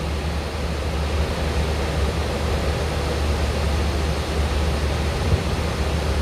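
Steady cabin noise of a Boeing 737 in flight: a low engine drone under an even rush of air.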